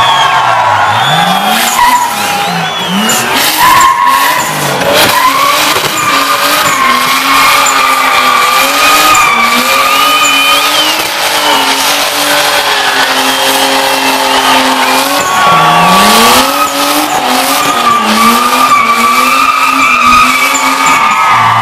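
Drift car's engine revving up and down again and again while its rear tyres squeal and smoke in a sustained drift. The engine pitch swings up and falls back every second or two, climbing again near the end, over a continuous tyre squeal.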